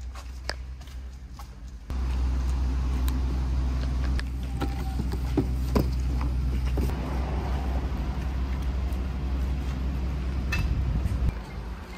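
A steady low hum, with scattered knocks and rustles as a cardboard box is opened and alloy wheels are handled. The hum starts suddenly about two seconds in and fades near the end.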